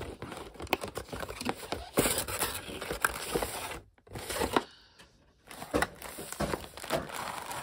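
Cardboard packaging being handled: rustling and scraping as a boxed figure is slid out of a cardboard sleeve and its flaps are pulled open, with scattered small taps and clicks. The sound drops out briefly twice near the middle.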